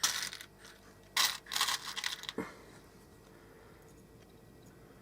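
Small metal rivet parts clinking and rattling as they are picked out by hand, in a few short bursts in the first half.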